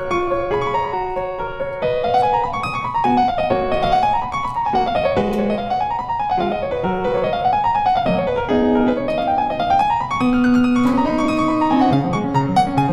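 Background piano music: quick runs of notes rising and falling again and again, over lower bass notes.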